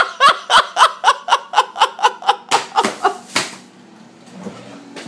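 Laughter in a fast run of short 'ha' pulses, about four a second, that stops about three and a half seconds in.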